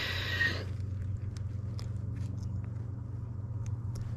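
Gloved hands handling a caught largemouth bass at the lip and its hook: a short rustle at the start, then light scattered clicks, over a steady low hum.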